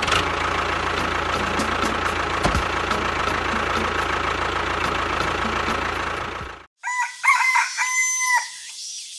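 A loud, steady noise with a low hum cuts off suddenly about six and a half seconds in. A moment later a rooster crows once.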